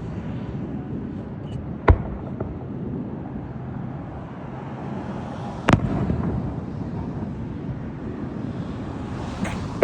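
Fireworks exploding: a sharp bang about two seconds in, a second about six seconds in, and a fainter one near the end, over a steady low rumble of background noise.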